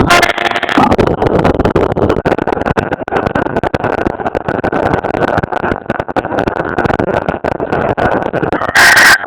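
CNC router running, with a steady spindle whine over a dense, irregular crackle. Near the end comes a brief, louder, harsher burst.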